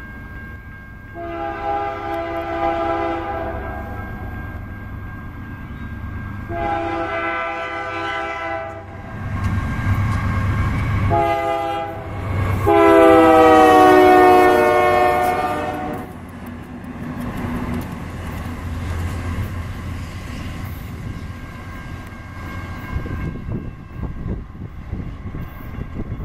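Horn of the lead Union Pacific GE diesel locomotive sounding several notes together in the grade-crossing pattern: two long blasts, a short one and a long one. The last blast is the loudest and drops in pitch as the locomotives pass, and the engines and wheels rumble on after the horn stops.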